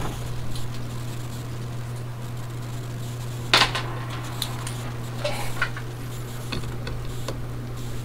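A few light clicks and taps of a tool and hard parts being handled on a workbench, the sharpest single click about three and a half seconds in and smaller ones over the next few seconds, over a steady low hum.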